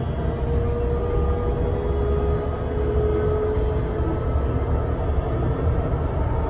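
Cabin noise inside a Solaris Urbino 18 electric articulated bus under way: a steady low rumble of tyres and running gear, with the electric drive's whine, a thin tone that sinks slightly in pitch over the first few seconds and comes back near the end.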